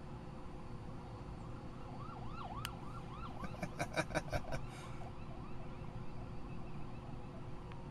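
Distant police car siren: a fast warbling yelp for about a second, then a burst of rapid pulsed tones. Near the end it drops into a falling tone.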